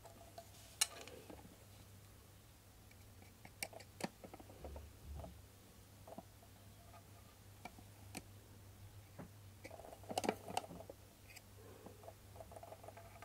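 Scattered light clicks and knocks of a food chopper's plastic housing and parts being handled while the casing is open, with a small cluster of knocks about ten seconds in.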